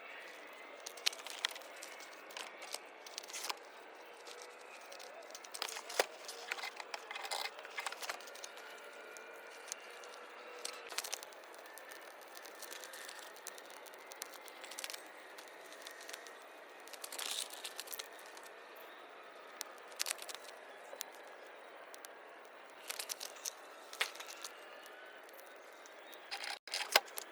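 Irregular crackles, snaps and rustles from a failed attempt to light a campfire of damp wood, with plastic and sticks being handled and burned.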